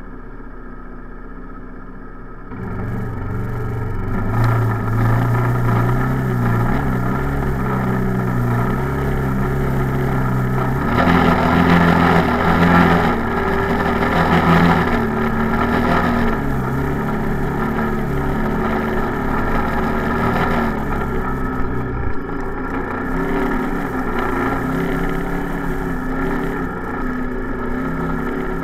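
Off-road vehicle engine pulling at changing revs. It picks up about three seconds in and rises and falls as the vehicle drives through a shallow creek, with water splashing and rushing around it.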